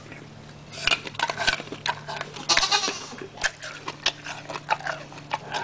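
Gorilla chewing food with its mouth open, heard as an irregular run of wet smacks and clicks, over a faint steady low hum.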